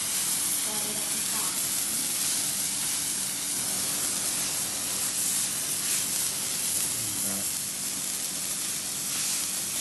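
Hand-held firework burning with a steady, unbroken hiss of spraying sparks.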